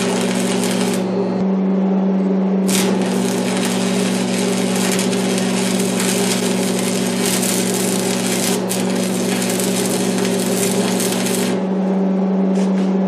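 Electric arc welding: the crackling sizzle of two tack welds joining a steel workpiece to a steel plate. The first arc stops about a second in, the second burns from about three seconds to near the end, with a steady low hum underneath.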